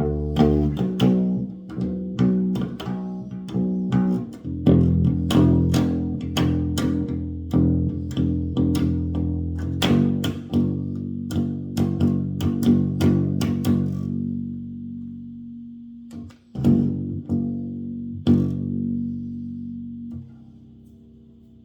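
Electric bass guitar played freely for odd noises: low notes ring on while the strings are struck sharply over and over, several times a second. The strikes thin out to two or three separate hits that ring and fade near the end.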